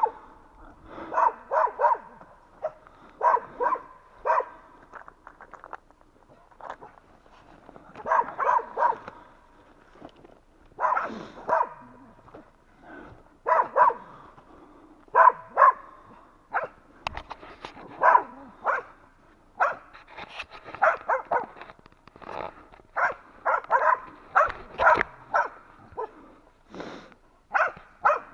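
West Siberian laikas barking at a bear, in repeated clusters of several short barks every second or two.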